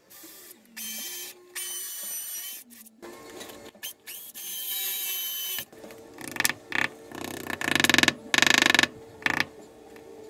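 A cordless power tool's motor running in repeated short bursts, starting and stopping, while wall anchors and hooks are being fitted. The bursts come thicker and louder from about six seconds in.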